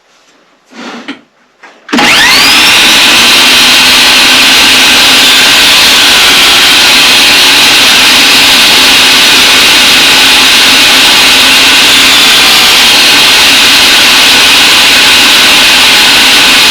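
A power saw fitted with a dado blade is switched on about two seconds in, whining up to speed and then running loud and steady. A few faint handling sounds come before it starts.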